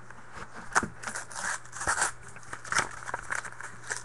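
Cardboard trading-card box being torn open by hand: irregular tearing and rustling with sharp clicks and taps.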